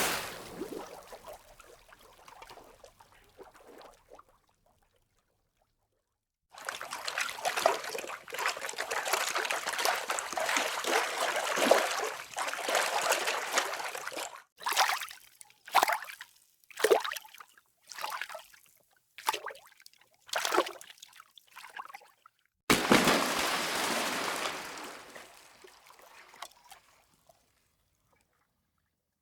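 Water splashes: a splash dying away, then several seconds of continuous sloshing and splashing, then a run of about seven short separate splashes roughly a second apart, and finally one sudden splash that fades out.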